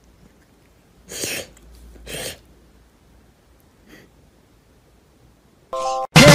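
A cat sneezing twice, short puffs about a second apart. Music starts loudly near the end.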